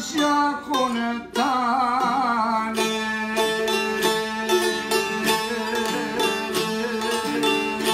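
A man's wavering folk singing, accompanied by a long-necked Albanian lute. The voice drops out after about two seconds, and the lute carries on alone with quick, evenly plucked notes over a steady drone.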